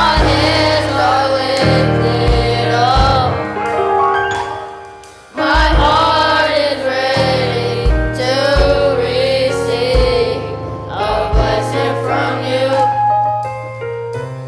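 Gospel worship music: voices singing a melody over a band with bass and drums. The music fades down about four seconds in and comes back in strongly just after five seconds.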